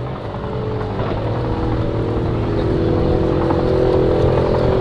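Car engine running hard at high speed: a steady, even drone that grows gradually louder.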